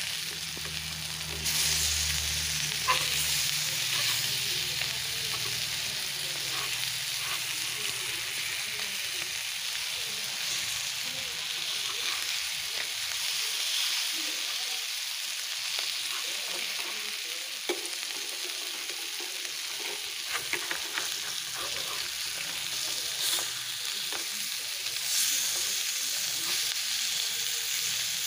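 Masala-coated sardines sizzling steadily as they shallow-fry in a little oil in a frying pan. A spatula scrapes and taps against the pan now and then as the fish are turned over.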